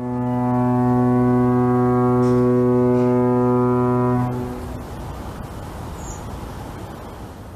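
A ship's horn sounds one long, steady low blast for about four seconds. It then gives way to a softer rushing noise.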